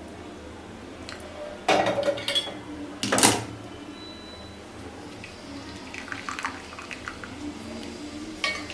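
Metal kitchen vessels and utensils clattering while boiled tea is being strained: two loud clanks about two and three seconds in, then lighter clicks.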